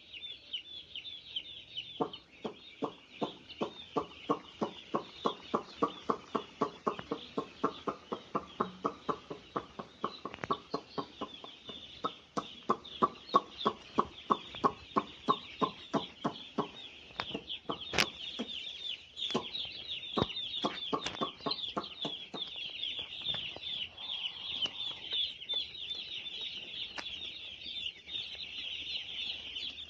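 A large crowd of chicks cheeping continuously, a dense chorus of rapid high peeps. Through most of it runs a lower rhythmic pulse, about two or three beats a second, that stops about three quarters of the way through; a single sharp click is heard in the middle.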